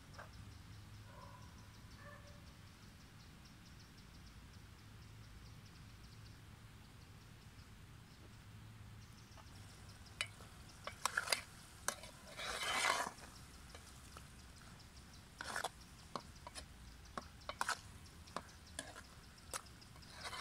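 Spoon stirring a thick stew in a metal pot over a wood fire, clicking and scraping against the pot, starting about halfway through, with one longer scrape. Before that only a faint steady background.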